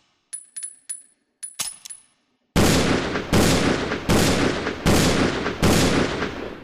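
Taurus Raging Bull revolver: a few sharp metallic clicks of the action being worked, then five loud shots fired in steady succession, each ringing out before the next.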